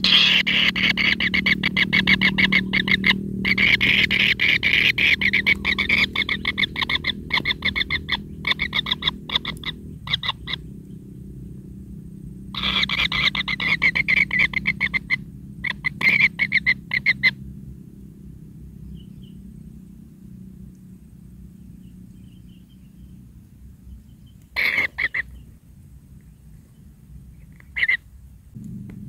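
Kingfisher nestlings giving rapid rattling begging calls, a fast churring train of clicks. One bout runs about ten seconds and, after a pause, a second lasts about five seconds; two short bursts come near the end.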